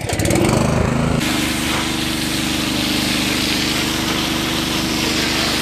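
A water pump starts up and winds up to a steady hum, and about a second in a jet of water from a hose starts hissing hard onto the platform deck.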